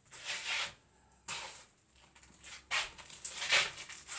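Rustling and scraping as a corned beef can and its opening key are handled: several short, irregular scuffs.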